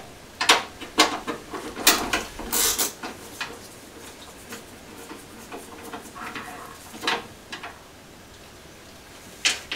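Irregular small clicks, taps and scrapes of a screwdriver and gloved hands working the little retaining screws of a car's headlight unit, loosening it from its mounting.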